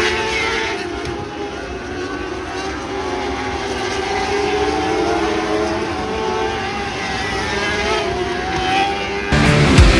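Several lightning sprint cars' 600cc motorcycle engines racing, their pitch rising and falling as they rev through the laps. About nine seconds in, the engine sound cuts off and loud music starts.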